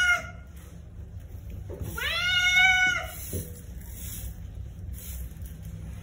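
A wet orange-and-white long-haired cat meowing while being shampooed in a sink: the end of one meow at the start, then one long drawn-out meow about two seconds in.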